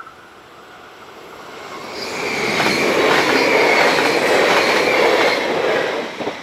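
Double-deck electric passenger train passing at speed over a level crossing: a rush of wheel and rail noise that builds over about two seconds and holds loud with rapid clicks of the wheels over the rail joints, then falls away suddenly near the end as the last car clears.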